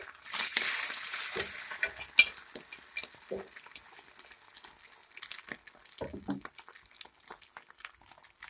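Beaten egg frying in mustard oil on a tawa: a loud burst of sizzling for about the first two seconds as the omelette is turned over, then quieter crackling, with a wooden spatula scraping and tapping the pan.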